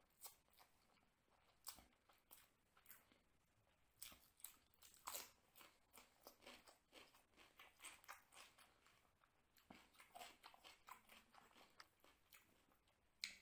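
Faint chewing of a mouthful of chicken biryani eaten by hand: an irregular string of wet mouth clicks and smacks, busiest in the middle.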